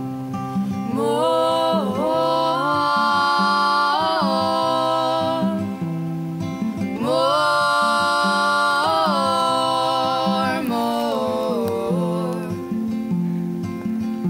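Background music: acoustic guitar with wordless harmonised singing. Two long notes are held, one from about a second in and another from about seven seconds in.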